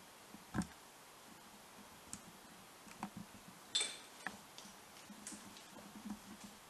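Scattered small clicks and taps at irregular intervals, with a fuller knock about half a second in and a sharper, brighter click near four seconds.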